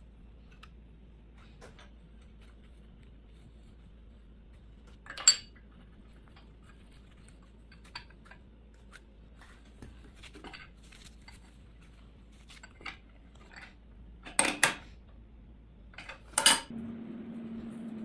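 Brass pipe fittings and a steel adjustable wrench clinking and knocking on a bench vise as the fittings are screwed together and tightened, with scattered light clicks. The loudest clanks come about five seconds in and three times in the last few seconds, after which a steady hum starts.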